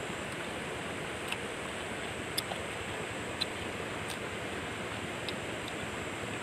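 Steady rush of river water flowing, with a few faint, sharp clicks scattered through.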